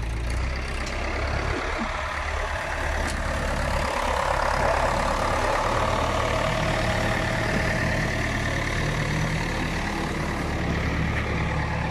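David Brown 1390 tractor's four-cylinder diesel engine running steadily under load as it tows a dead tractor on a chain, the engine note swelling a little in the middle.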